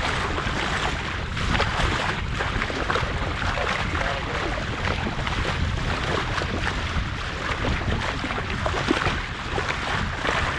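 Water rushing and splashing steadily along the hull of a 1981 Banshee sailing dinghy under way, with wind buffeting the microphone as a low rumble.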